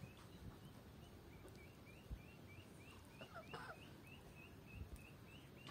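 Faint bird calling, a rapid string of short, rising chirps repeated about four times a second.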